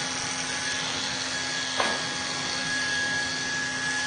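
Corded electric hair clippers running with a steady hum as they cut close through short hair. There is a single sharp tap a little before the middle.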